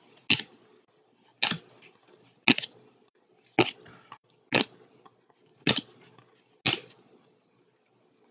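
A stack of trading cards being handled, cards moved one at a time from the back of the stack to the front: seven short, crisp snaps, about one a second.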